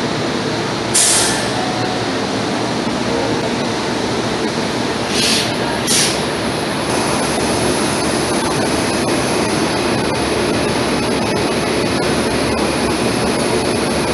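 Steady running noise of a train at a station platform, broken by three short hisses of air, one about a second in and two close together around five to six seconds in.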